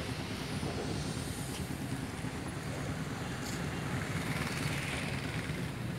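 Wind buffeting a phone microphone: a steady, low rumbling noise with no distinct pitch.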